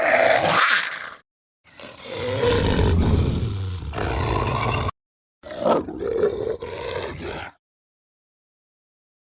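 Film werewolf creature sound effects: three separate roars, the first cut off about a second in, a longer one of about three seconds, and a shorter one ending about two seconds before dead silence.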